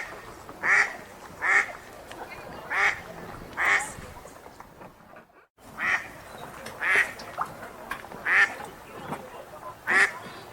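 Wild duck quacking in a steady series of short, loud quacks, about one every three-quarters of a second, over a faint background hiss. The calls break off briefly about five seconds in, then resume at the same pace.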